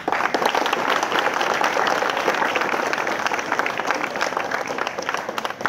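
Applause from a large crowd of schoolboys: many hands clapping together, starting suddenly and keeping up steadily.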